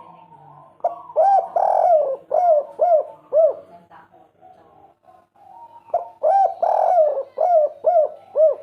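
Spotted dove (derkuku) singing its 'kuk 3' song twice: each phrase is an opening note and a long coo followed by a run of short, evenly spaced coos.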